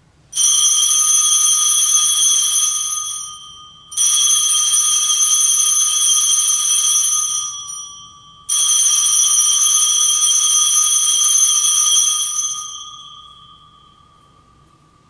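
Altar bells shaken three times, each ring a bright jingle lasting about three seconds, the last one fading out slowly. They mark the elevation of the consecrated host.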